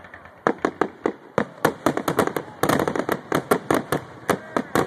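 Aerial fireworks bursting overhead: a rapid string of sharp bangs and pops, several a second, starting about half a second in and coming thicker past the middle.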